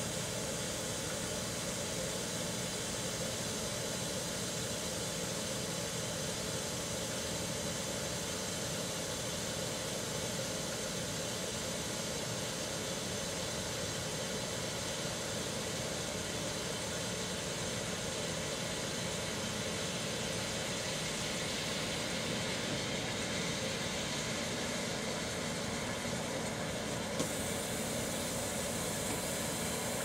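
Microwave oven running with its steady hum and fan noise, mixed with the hiss of steam from a sealed Listerine bottle heating inside it as pressure builds.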